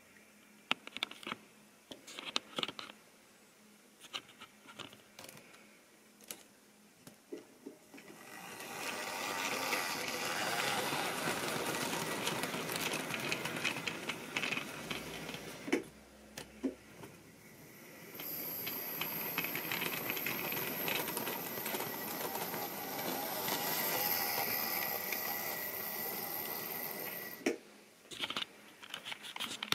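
Model railway train running on sectional track: scattered clicks of its wheels over rail joints and points, then a steady rolling rattle as it passes close, in two stretches, the second with a thin high motor whine. The running sound stops abruptly near the end, leaving a few more clicks.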